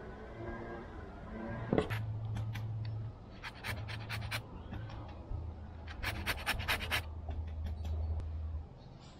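An orange being zested on a handheld grater: a knock about two seconds in, then two runs of quick scraping strokes, over a low steady hum that stops near the end.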